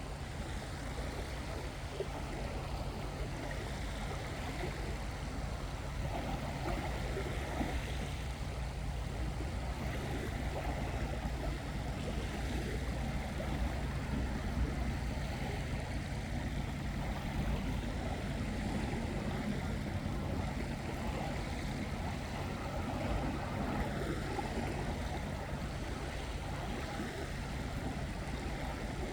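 Seawater washing steadily against the shore, with a constant low hum underneath.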